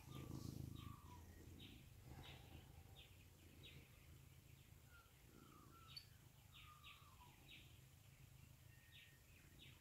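Faint dawn chorus of several birds: many short high chirps repeating throughout, with a few lower falling whistled notes, over a steady low hum.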